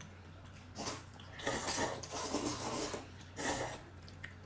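A man's sharp, noisy breaths and sniffs while eating something very spicy: one short one about a second in, a longer run, then another near the end.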